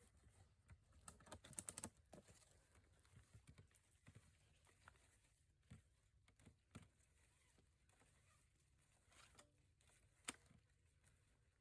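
Near silence broken by faint, scattered clicks and taps: a quick cluster about a second and a half in, a few single ticks after, and one sharper tick near the end.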